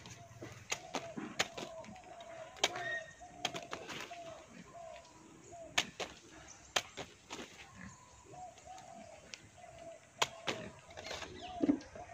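A bird calling over and over in short dipping notes, with scattered sharp knocks and clicks from handling bananas and a machete.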